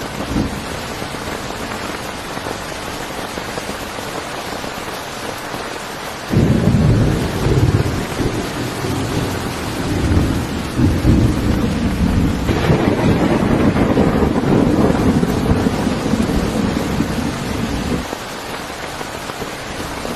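Heavy rain falling steadily during a thunderstorm. About six seconds in, thunder breaks out and rumbles for about twelve seconds, growing louder around twelve seconds in, then dies away, leaving the rain.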